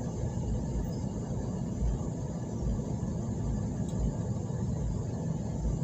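Vehicle engine running with a steady low rumble, heard while creeping in traffic.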